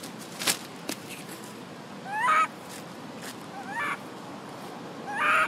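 Baby macaque crying: three shrill, rising wails about a second and a half apart, the loudest near the end. A sharp click comes about half a second in.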